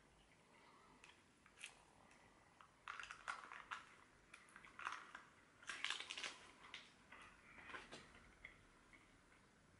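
Quiet chewing of breaded chicken nuggets, with bursts of faint crackling clicks between about three and eight seconds in.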